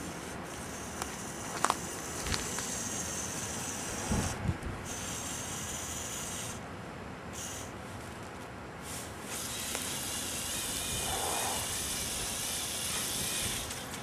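Small electric motors of a remote-controlled LEGO Technic bulldozer whirring with a high hiss in spurts as its tracks and blades are driven, starting and stopping several times, with the longest run near the end. A few light plastic clicks and knocks come in between.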